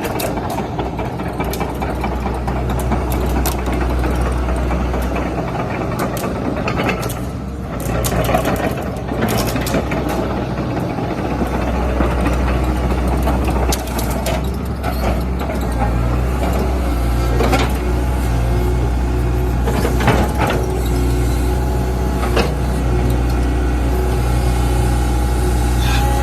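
Hitachi ZX135 excavator's diesel engine running with a steady deep drone. The drone eases off for a few seconds about a quarter of the way in, then comes back strong. Scattered knocks sound over it.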